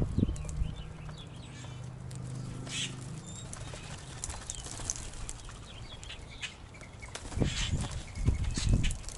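Wings flapping as grackles and mourning doves flutter about, in bursts near the start and again in the last couple of seconds, with short high bird calls scattered throughout.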